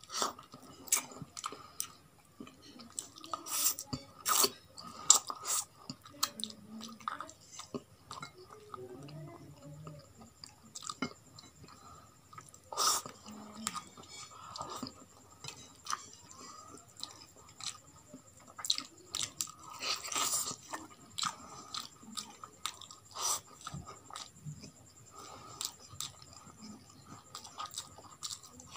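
A person chewing roasted chicken and rice eaten by hand: irregular chewing with sharp clicks now and then.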